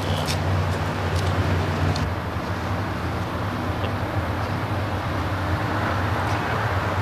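Steady low drone of a car engine idling, easing slightly about two seconds in.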